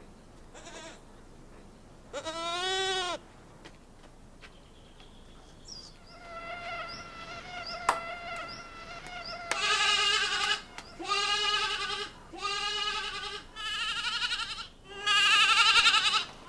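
Kid goat bleating: one rising-and-falling call about two seconds in, then, in the second half, a run of quavering bleats about a second long each, the last the loudest.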